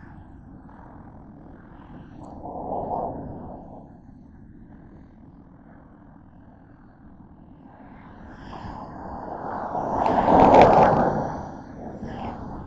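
Traffic on a rain-wet road: a steady low rumble of tyres and engines, with a vehicle passing about three seconds in and a louder one swelling to a hissing whoosh near the end before fading.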